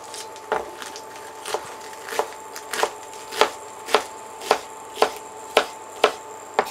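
Chef's knife chopping an iceberg lettuce leaf on a bamboo cutting board: about a dozen even strokes, a little under two a second, each a sharp knock of the blade through the leaf onto the wood.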